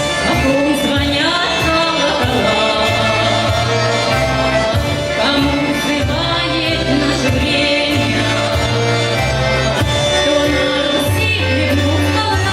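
Russian folk ensemble song: voices singing a melody over instrumental accompaniment with a steady beat and a repeating bass line.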